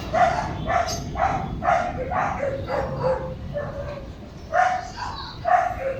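A dog barking in a quick run of short barks, about two to three a second, pausing after about three and a half seconds before two more barks near the end.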